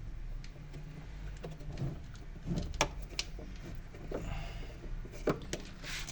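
Scattered clicks and knocks of washing-machine parts being handled, over a steady low hum.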